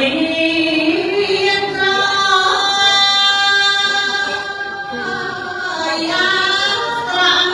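A woman's solo voice chanting Khmer smot, the unaccompanied Buddhist verse chant: a glide up into a long held, wavering note, which dips and climbs again near the end.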